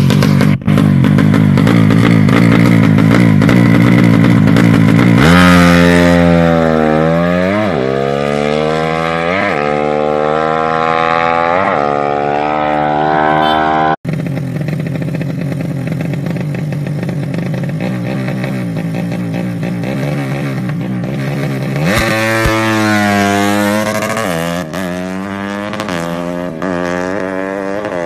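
Single-cylinder four-stroke engine of a Yamaha Jupiter drag bike, bored out to 180cc, running loud at high revs, then accelerating hard. Its pitch climbs and drops back at each gear change, in a run of rising sweeps. This happens twice, in separate clips.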